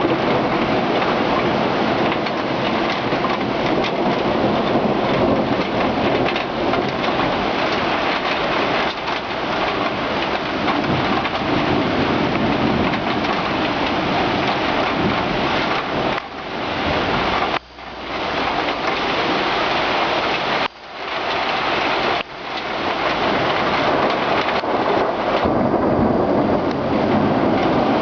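Heavy rain pouring down steadily during a thunderstorm, with thunder rumbling. The sound cuts out abruptly for a moment a few times in the second half.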